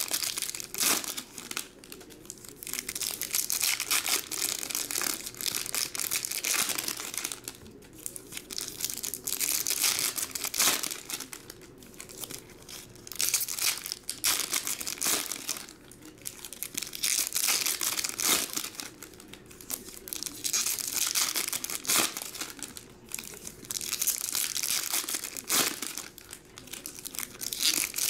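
Foil trading-card pack wrappers being torn open and crinkled by hand, in bursts of crackling every few seconds with short pauses between packs.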